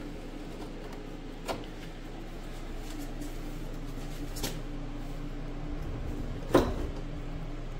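A few light clicks and one louder clunk near the end as the choke knob and linkage of an old Lawn Chief riding tractor are worked back and forth, over a steady low hum.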